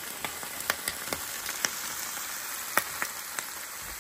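Bacon sizzling on a portable barbecue hotplate: a steady frying hiss with scattered spitting pops.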